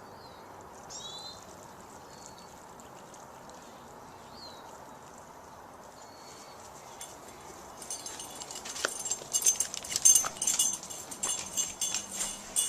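Faint outdoor background with several brief bird chirps. From about eight seconds in, a busy run of clicks and rustling takes over and is the loudest sound.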